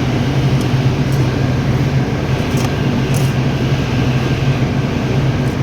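Steady low mechanical hum from a running machine, unchanged throughout, with a few faint light clicks.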